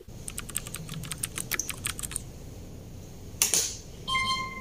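A quick run of key clicks, like typing, for about two seconds, then a sharp click. About four seconds in comes a steady electronic beep from the capsule door's barcode scanner as a phone's code is held to it.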